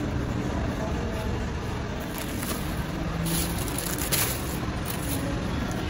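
Thin plastic grocery bags and packaged items rustling and crinkling in a few short spells as they are handled into a car boot, over a steady low background rumble.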